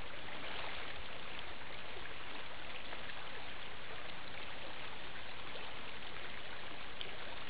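Shallow stony creek running: a steady rush of flowing water.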